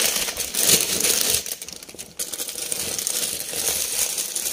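Clear plastic storage bags of folded clothes crinkling and rustling as they are handled and pulled from a shelf, with a short lull about halfway through.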